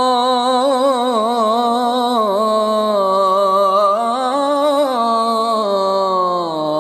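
A solo voice singing a long ornamented melisma in an Arabic nasheed on the call to prayer, drawing out "Allahu akbar"; the pitch wavers in quick turns and slides down near the end.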